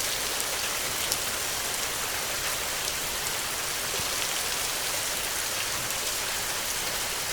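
Heavy rain falling steadily: a dense, even hiss with scattered small drop ticks.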